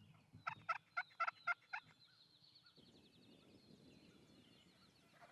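A wild turkey gobbling: one quick rattling run of about seven notes, over in under two seconds. A faint high trill follows.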